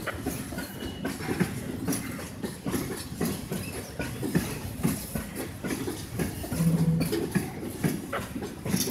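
Train of loaded sulfur tank wagons rolling slowly past, wheels clicking and knocking irregularly over the rail joints, with a brief low tone about two-thirds of the way through.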